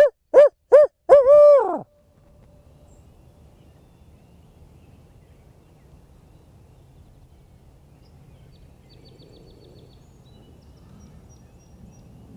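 A man hooting like an owl by mouth into a cupped hand, as a locator call to make a turkey gobble: four hoots in under two seconds, the last one drawn out longest. Then only quiet outdoor air with a few faint distant bird chirps, and no gobble answers.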